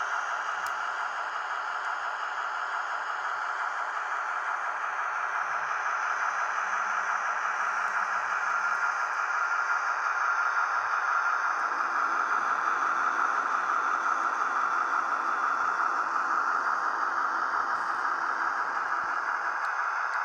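H0 model train running on the layout: steady whirring and rattling of the model locomotive and coaches rolling along the track. It grows a little louder about halfway through.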